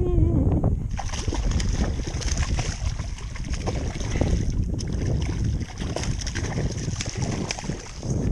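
Hooked porgy (scup) splashing and thrashing at the surface beside a kayak as it is reeled in and lifted out, a run of sharp splashes and water slaps over wind on the microphone.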